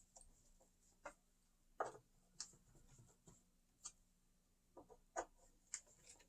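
Faint, scattered clicks and scrapes of a hand tool tightening the screws that hold a Onewheel Pint X slider plate, a little at a time.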